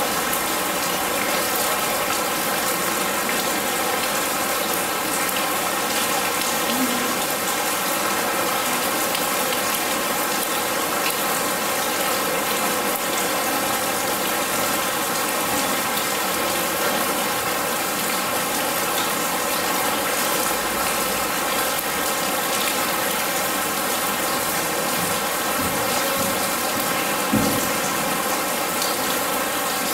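Steady artificial rain falling and dripping onto metal and into standing water. A single dull knock sounds near the end.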